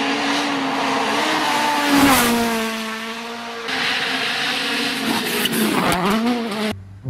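Hyundai i20 WRC rally car's turbocharged four-cylinder engine running at high revs on a gravel stage, loudest as it passes about two seconds in, where the pitch drops. Near the end the revs dip and climb again, then the sound cuts off suddenly.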